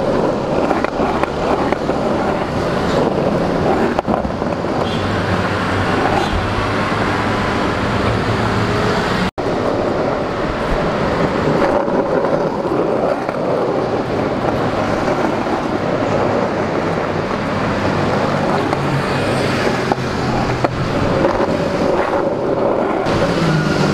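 Busy street traffic noise with wind rushing over the microphone while moving along the road and pavement. The sound drops out for an instant about nine seconds in.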